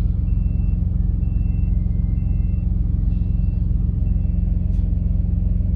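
Diesel semi-truck engine idling steadily, heard from inside the cab. A faint high beeping repeats about once a second, the backup alarm of a truck reversing.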